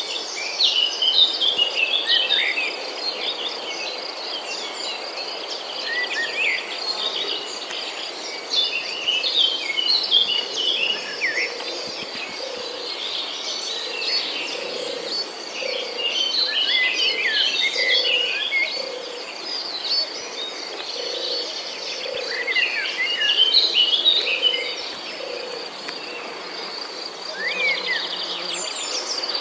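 Birds chirping and calling over a steady, high cricket-like insect trill, with a lower call repeating about once a second through the middle.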